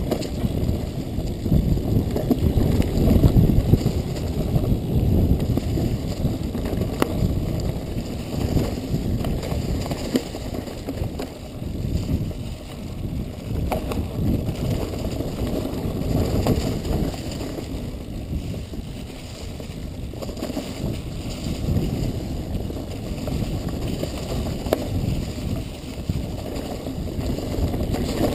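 Mountain bike descending a rough, chunky trail: a continuous rumble of tyres over dirt and leaves mixed with wind buffeting the microphone, with scattered clicks and rattles from the bike over the bumps.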